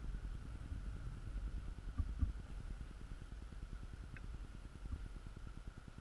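Low, unsteady wind rumble on the microphone, with a few dull knocks about two seconds in and again around five seconds, and one faint short high note near the middle.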